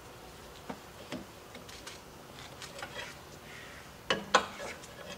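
Steel pry bar clinking and scraping against a concrete grinder's metal belt pulley as tight V-belts are levered off, with scattered light clicks and two sharp metal knocks about four seconds in.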